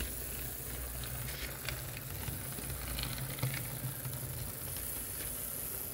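HO-scale Athearn SDP40 locomotive chassis running at slow speed: a steady motor and gear hum with a few light clicks as the wheels cross the rails of the turnout.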